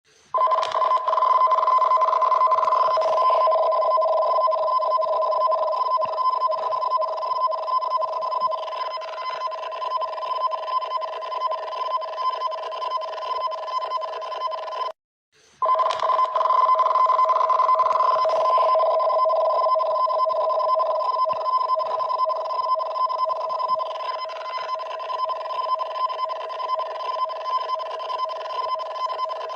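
Emergency alert alarm for a tsunami warning: a high and a lower electronic tone held together. It breaks off for a moment about halfway and starts again the same way as the alarm loops.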